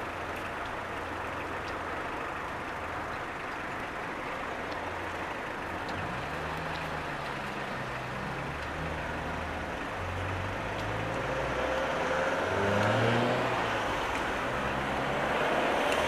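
Street traffic: a steady rumble, then from about six seconds in a motor vehicle's engine rising in pitch in steps as it accelerates through its gears, growing louder toward the end.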